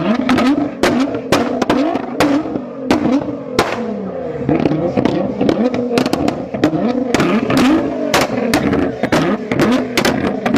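Car engine revved over and over, its pitch rising and falling, with many loud sharp exhaust pops and bangs (backfires) cracking all through.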